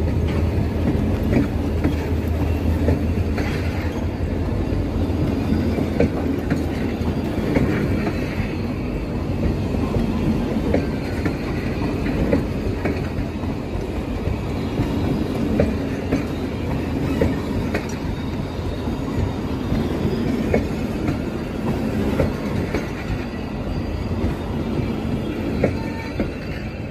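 Passenger train coaches rolling past, wheels clattering over the rail joints with occasional squeals. The sound drops slightly near the end as the last coach goes by.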